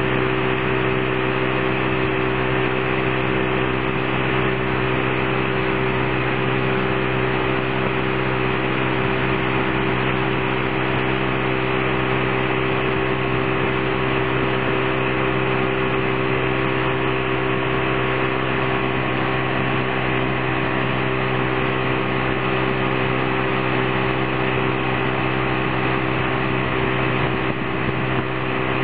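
Tow boat's engine running steadily at towing speed, heard from aboard: a constant, even hum over a steady rushing noise of water from the wake.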